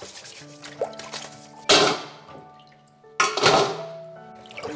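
Wet, freshly scrubbed crabs dropped into a stainless steel bowl: two sharp clanging clatters about a second and a half apart, each ringing off, with water dripping.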